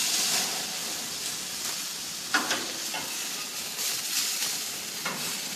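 Marinated pork chops sizzling on a hot gas grill as they are flipped with metal tongs, the sizzle loudest at the start, with a few sharp clicks of the tongs against the steel grates about two seconds in and near the end.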